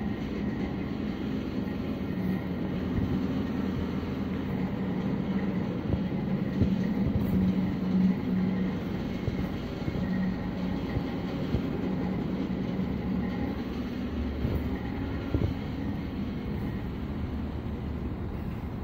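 Steady low hum and rumble, with a few brief bumps about six to eight seconds in.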